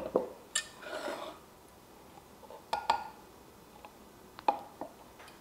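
A few light knocks and clinks of a glass measuring cup and a saucepan as heavy cream is poured from the cup into the pot, with a short soft pouring sound about a second in.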